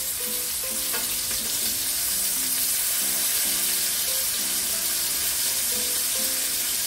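Pork chops frying in olive oil and butter in a frying pan: a steady hissing sizzle as they are turned with tongs, with one sharp click about a second in.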